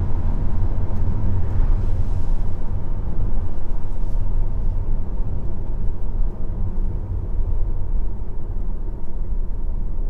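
Road and tyre noise inside the cabin of a Tesla Model 3 Performance slowing down from highway speed, a steady low rumble with a hiss of tyres and wind. The hiss thins out after a few seconds and the rumble eases a little toward the end as the car slows.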